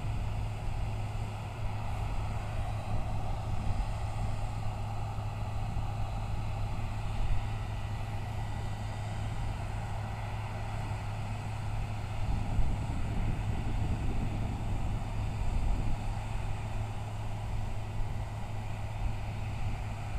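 Diesel engine of harvest machinery, a combine or tractor, running steadily under load with a constant low drone.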